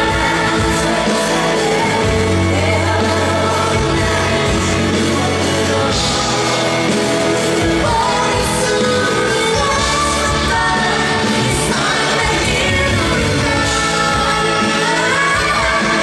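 Live pop performance: a woman singing a sustained melodic vocal line over full band accompaniment.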